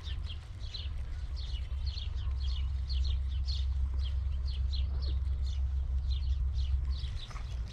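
Birds chirping from the trees and reeds: a dense run of short, high, falling chirps, several a second, over a steady low rumble.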